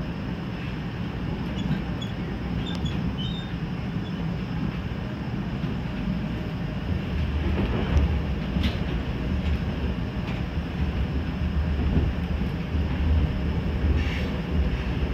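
Steady low rumble of trains heard from inside a Sounder commuter coach as a BNSF freight train passes close alongside. The rumble strengthens about halfway through, with a sharp click about nine seconds in and a short higher-pitched noise near the end.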